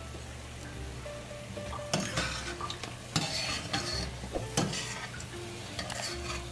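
Battered veggie balls sizzling in hot oil while a wire spider strainer scrapes and clinks against the stainless steel pan as they are scooped out, with sharper scrapes about two, three and four and a half seconds in.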